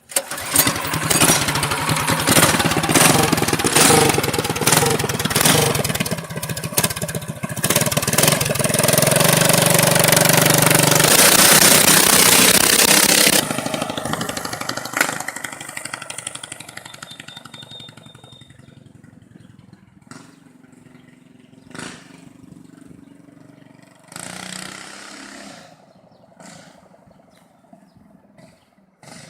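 Predator 212 single-cylinder engine in a go-kart buggy, fitted with a stage 1 header pipe and jet kit, running loud at high revs under acceleration. After about thirteen seconds it fades away as the buggy drives off, leaving a few faint knocks and noises.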